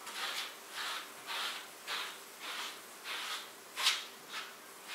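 Grooming brush stroking through a Pembroke Welsh corgi's thick coat: short brushing swishes, about two a second, one a little sharper near the end.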